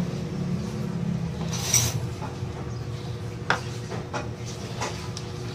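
Faint clicks and a brief rustle from hands handling the amplifier and the multimeter resting on it, over a steady low hum.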